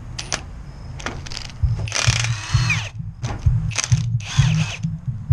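Hand ratchet wrench clicking in several short runs, about two to four seconds in, as bolts are worked loose on the truck's rear suspension, over a low pulsing.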